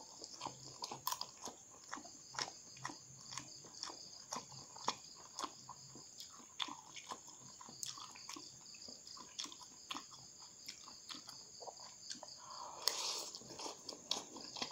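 Close-miked mouth sounds of someone chewing noodles: irregular wet clicks and smacks, several a second. Near the end there is a louder, longer slurp as a forkful of noodles is sucked in.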